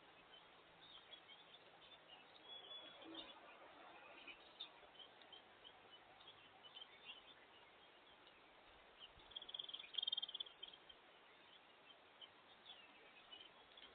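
Faint chirping of small songbirds at a feeder, scattered short high chirps with a louder flurry of chirps about ten seconds in, over a faint outdoor hiss.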